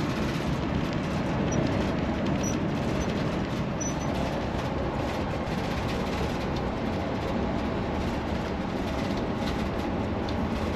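Steady road and engine noise inside the cab of a vehicle travelling at highway speed, an even rumble with no distinct events.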